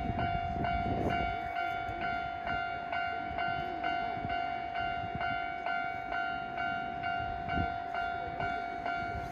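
Japanese level-crossing warning bell ringing in an even rhythm of about two strokes a second, over a low rumble.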